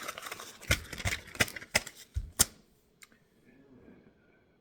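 A quick, irregular run of sharp clicks and light knocks for about two and a half seconds, then quiet except for one faint click.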